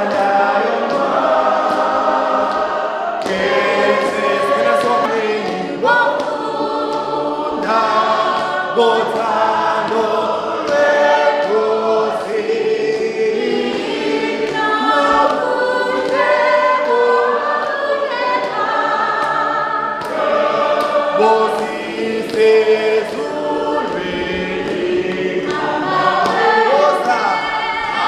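A church congregation singing together, many voices in chorus.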